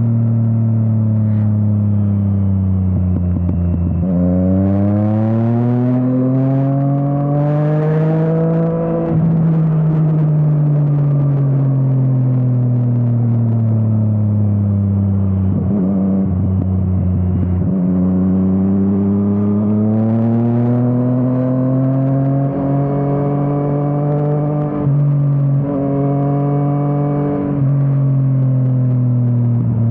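Yamaha MT-09 three-cylinder engine through an Akrapovič exhaust on a ride: the engine note falls, jumps up about four seconds in and rises hard, then falls off slowly on a closed throttle. It climbs again later with a couple of brief breaks near the end, as at gear changes.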